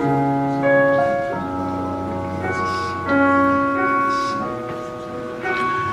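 Keyboard playing sustained, organ-like chords that shift to a new chord about every one to two seconds, as backing under prayer.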